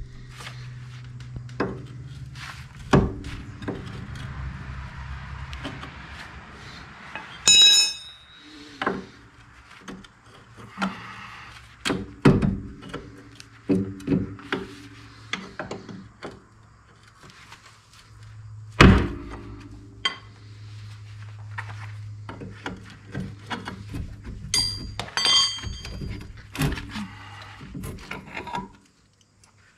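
Metal tools and parts knocking and clanking against a car's rear wheel hub and brake backer plate as the assembly is taken apart, with a few bright metallic rings, one about seven seconds in and a cluster around twenty-five seconds in.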